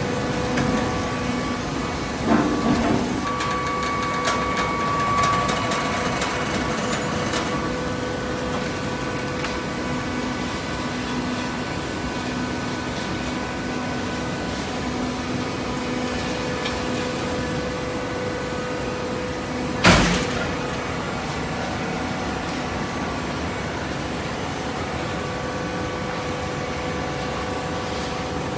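Hydraulic cardboard baler running with a steady machine hum, with a few knocks about two seconds in and a single loud bang about twenty seconds in.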